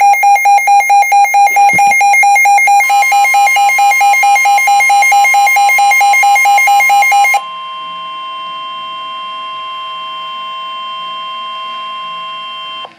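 Emergency Alert System warning tones: a loud alarm beeping rapidly, about four pulses a second, with a second, higher tone joining about three seconds in. About seven seconds in the pulsing stops, and a quieter steady tone holds until it cuts off near the end.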